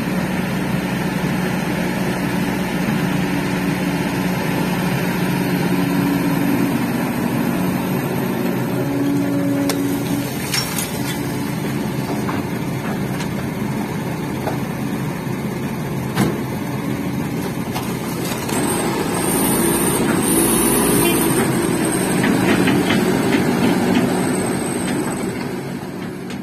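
Diesel engines of a Kobelco crawler excavator and a Mitsubishi Canter dump truck running steadily while the excavator loads sand and gravel into the truck's bed, with a few sharp knocks. It gets louder for a stretch near the end, with a faint high whine, then fades out.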